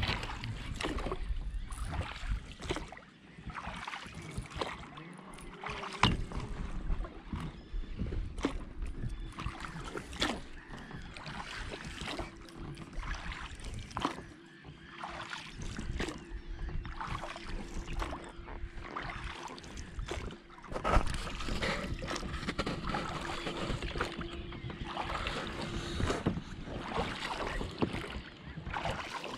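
Water sloshing and lapping around an inflatable rowboat, with scattered knocks and clicks of fishing tackle against the boat while a lure is retrieved on a spinning reel. Near the end the boat is rowed and the oars dip and splash.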